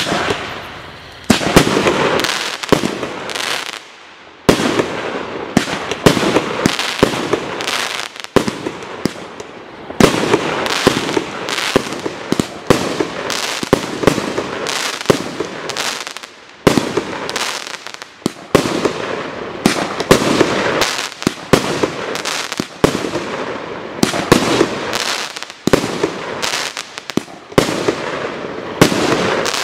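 A 36-shot 30mm firework cake firing shot after shot, about one a second: sharp bangs as the tubes launch and the shells burst, with crackling stars between them and brief pauses near the start.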